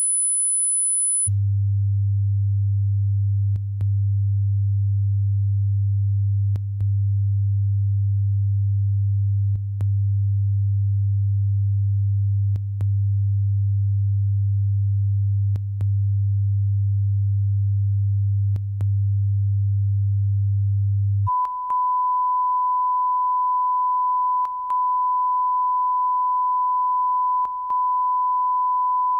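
Broadcast tape line-up test tones: a very high steady tone that stops about a second in, then a low steady tone for about twenty seconds, then the mid-pitched 1 kHz reference tone near the end. Each tone is briefly broken about every three seconds.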